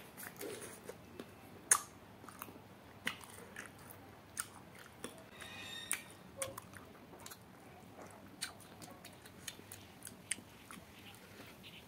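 A person biting and chewing cooked duck: irregular wet mouth smacks and clicks, the sharpest about two seconds in.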